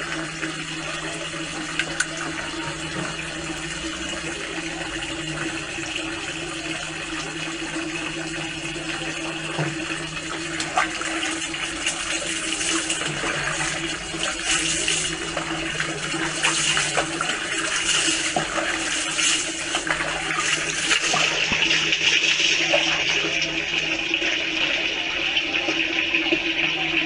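Water splashing as it is poured from a plastic dipper during a bucket bath, over a steady rush of water and a faint low hum. Splashes come again and again from the middle on, and the water noise grows louder near the end.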